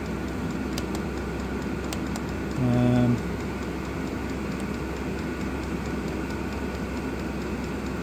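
Vevor diesel air heater running: a steady hum from its fan and burner, with the faint click of the fuel pump every second or so.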